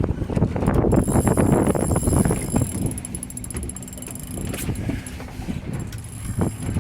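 Fishing boat's engine idling with wind on the microphone and a scatter of irregular clicks and knocks, louder in the first half and easing off after about three seconds.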